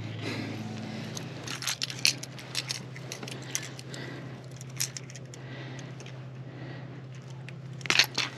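Light metallic clicking and jingling as a treble-hooked hard-bodied fishing lure is handled and worked free of a bass and a landing net, with a louder clatter near the end. A steady low hum runs underneath.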